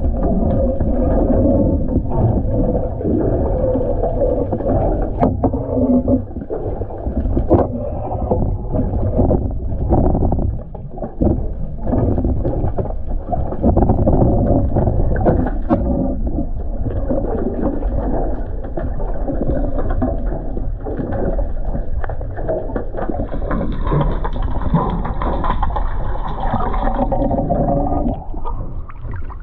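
A small boat on open water: steady low rumbling noise with water gurgling and occasional knocks against the hull.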